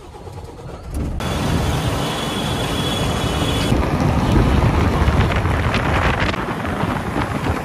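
Wind on the microphone with the road and engine noise of a Volvo FM 420 tractor-trailer driving at highway speed. It comes in suddenly and loud about a second in, after a short quieter stretch.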